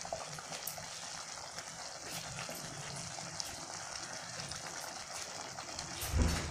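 Thick onion-tomato gravy simmering in a kadhai, a steady soft bubbling and sizzling, with a dull thump about six seconds in.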